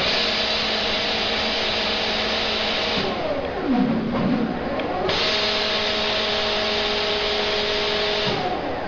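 Automatic spray-painting machine: compressed-air spray guns hiss in two long bursts of about three seconds each over a steady machine whine. Between the bursts, about three seconds in, the hiss stops and a motor whine dips and rises in pitch before spraying starts again.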